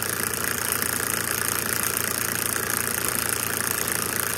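Homemade brushless Newman motor running steadily and really fast at full speed on 12 volts, its rotor spinning on a shaft in pillow-block bearings. A 15,000 microfarad capacitor in its transistor drive circuit is making it run faster and stronger.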